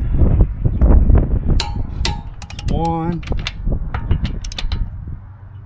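Torque wrench on wheel lug nuts: handling and ratcheting noise, then a run of about a dozen sharp metal clicks as the nuts are tightened to around 100 lb-ft.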